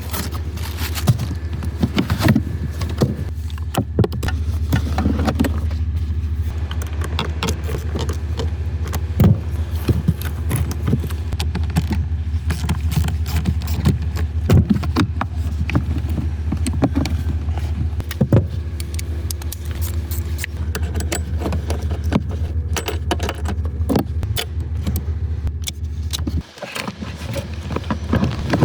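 Small metal parts jingling and clicking irregularly, over a steady low hum.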